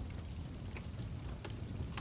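Wood fire crackling in a fireplace: scattered short pops and snaps over a steady low rumble of flame.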